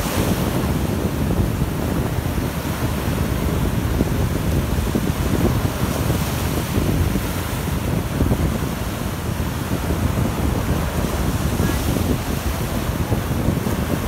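Sea surf breaking and washing up the sand in a steady wash, with wind buffeting the microphone.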